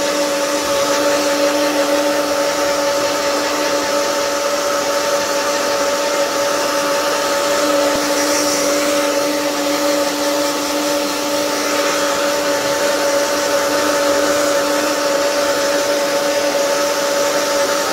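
Handheld hair dryer running steadily: a constant blowing hiss with an even motor whine.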